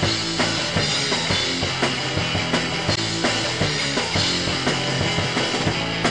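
Rock music with a steady drum beat and bass line.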